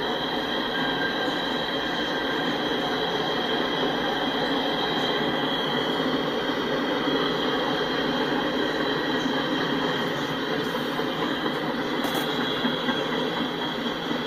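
Freight train's tank cars and covered hoppers rolling past: a steady rumble of steel wheels on rail, with a high, steady wheel squeal over it.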